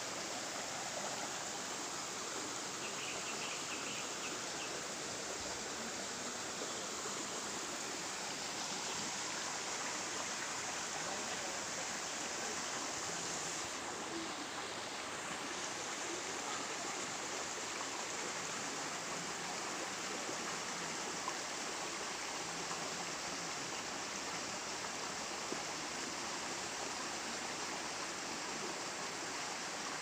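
Shallow rocky stream running over stones: a steady, even rush of water.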